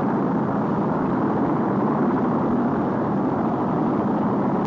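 Saturn V rocket's first-stage engines, five F-1s, firing at liftoff: a loud, steady, dense noise with no breaks.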